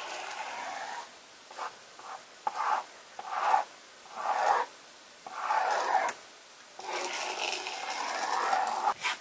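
Pencil scratching across paper in a series of drawing strokes, some short and some over a second long, with a long stroke near the end.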